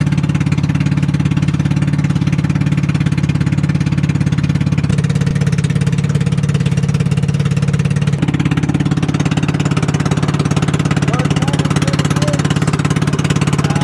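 Inboard engine of a small motorized outrigger boat (bangka) running steadily underway, a fast, even chugging pulse; its tone shifts slightly about eight seconds in.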